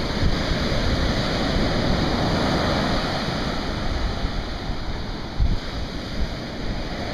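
Ocean surf breaking and washing up a sandy beach, a steady wash of noise, with wind buffeting the microphone.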